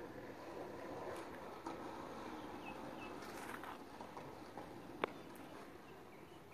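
Quiet outdoor background with soft shoe scuffs and steps on an asphalt court during taijiquan footwork. A couple of short, high bird chirps come about three seconds in, and a single sharp click comes about five seconds in.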